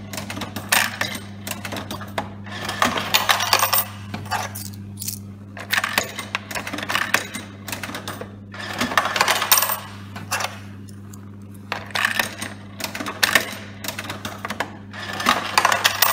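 Coins rattling through a drinks vending machine and clattering into its coin-return tray in about six bursts a few seconds apart, as coins are fed into the slot and paid back out as change. A steady low hum runs underneath.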